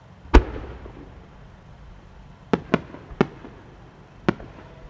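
12-inch aerial fireworks shell: one heavy boom shortly in with a rumbling tail, then four sharper cracks from about two and a half seconds in.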